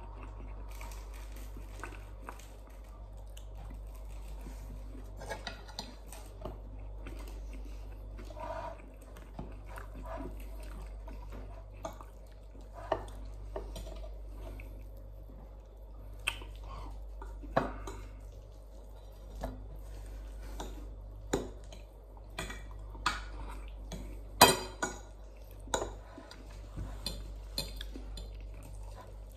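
A metal fork clinking and scraping on a china dinner plate during a meal: sharp, irregular clicks, the loudest about 24 seconds in, over a steady low hum.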